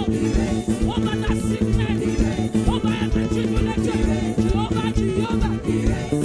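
Live church praise-band music with a steady, upbeat beat, held low notes and short sliding melodic lines over the top.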